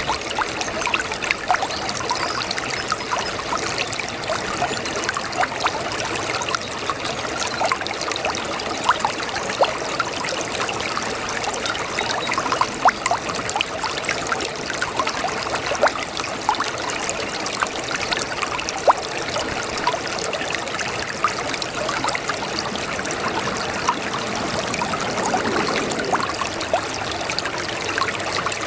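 Brook babbling: a steady trickle of shallow running water with many small splashes and gurgles.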